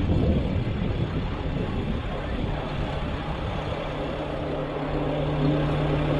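The 160-horsepower Cummins diesel of a Lamtrac 6160 tracked skid steer running under way, a rough, continuous machine noise. A steady low engine note grows stronger in the last second or so.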